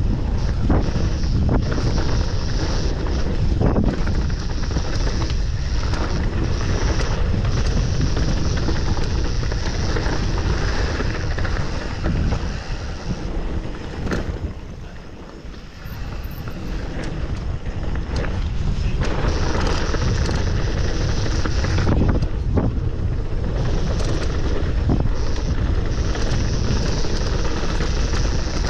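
Wind rushing over the camera microphone and a mountain bike rattling and knocking as it descends a rough trail. About halfway through, the noise drops for a few seconds, then builds up again.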